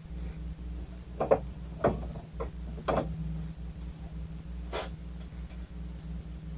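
Small objects handled on a workbench: four short knocks and clatters between about one and three seconds, then a brief rustle near five seconds.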